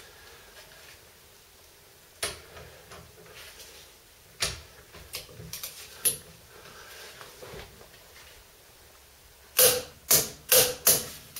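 Torque wrench tightening the brake caliper bolts on a VW T25 front hub: a few scattered metallic clicks, then a quick run of about five loud sharp clicks near the end.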